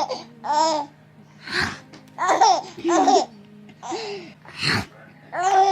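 Baby laughing in a run of short, high-pitched squealing laughs, each broken by a breathy gasp.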